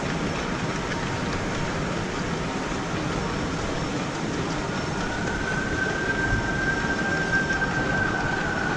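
Large-scale garden-railway train running on its track, a steady rumble and rattle of wheels on rails. About five seconds in a thin high squeal joins it and holds, as the wheels squeal through a curve.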